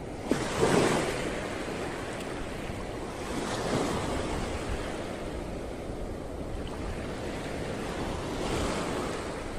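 Small waves breaking and washing up a sandy beach, surging about three times, with wind on the microphone.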